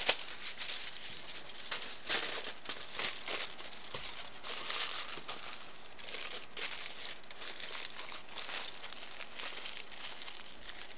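Aluminium foil crinkling and crumpling as it is folded by hand around a fish: a stream of irregular crackles, thickest in the first five seconds or so and sparser after.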